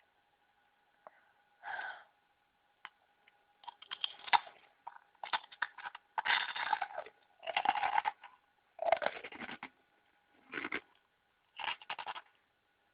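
Wet chewing and smacking in about eight irregular bursts, each under a second long, over a faint steady hum.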